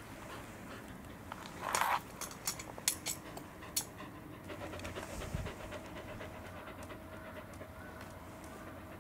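Fluffy Welsh corgi panting close by, mouth open after running. A short loud rustle about two seconds in and a few sharp clicks just after it are the loudest sounds.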